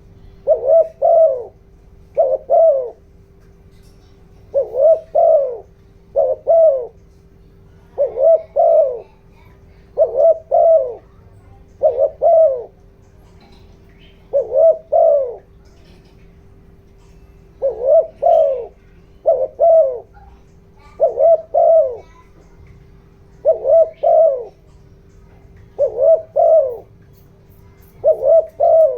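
Spotted dove cooing: short phrases of two or three coo notes repeated every one to two seconds, the 'giọng đồng' call used as a decoy to rouse wild doves. A faint steady hum runs underneath.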